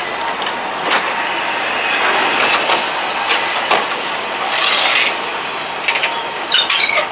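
Diesel railcar train running on the track, wheels clattering with scattered clicks and a thin high wheel squeal that comes and goes, strongest in the middle.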